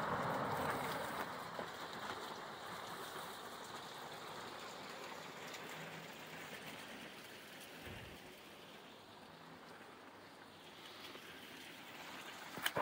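Road traffic below: a passing car's tyre and engine noise fading away over several seconds, then rising faintly again near the end as another car approaches.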